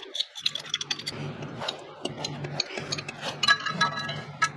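Hand tools clicking and ticking on metal bolts and brackets of a turbocharger, in quick irregular taps, with a few brief metallic rings near the end. A steady low hum runs underneath.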